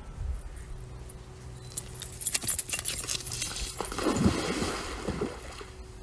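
A dog splashes into a swimming pool about four seconds in, throwing up a burst of churning water. Just before it comes a quick run of sharp clicks.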